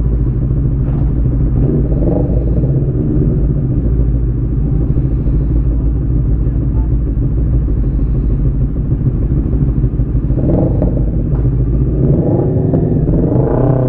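Motorcycle engine running steadily under way; from about ten seconds in, its pitch rises and falls as the throttle is worked.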